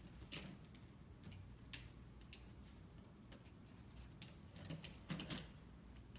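Light, scattered clicks and taps of small lip colour tubes being picked out and handled, with a small cluster of louder clicks about five seconds in.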